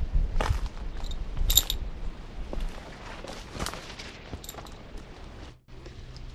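A knife blade shaving green strawberry guava wood: a few sharp, irregular scraping strokes over a low wind rumble on the microphone.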